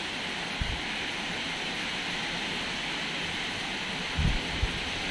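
Heavy rain falling steadily on a tiled rooftop terrace: an even, unbroken hiss. A few low wind thumps hit the microphone, most of them near the end.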